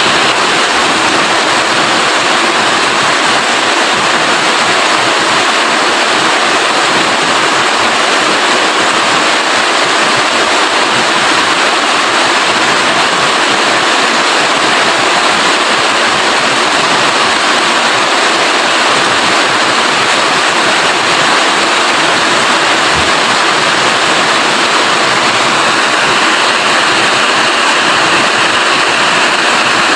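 Rain falling steadily: a dense, even hiss with no breaks.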